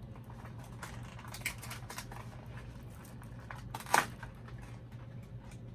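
Handling of toy-doll packaging and small plastic accessories: scattered light rustling and clicks, with one louder click about four seconds in.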